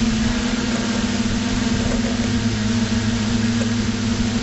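FPV quadcopter's electric motors and propellers running at a steady pitch, a constant hum over a rushing hiss, heard through the camera mounted on the drone.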